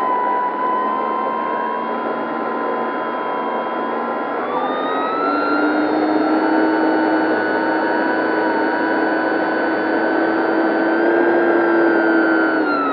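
Dynam 3720-650kV brushless electric motor and propeller of an RC warbird heard from on board, a steady whine over wind rush. The whine rises in pitch about four and a half seconds in as the throttle opens, holds high, and falls away again at the very end.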